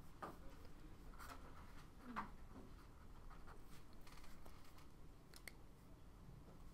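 Faint strokes of a felt-tip marker on paper as a short equation is written out by hand.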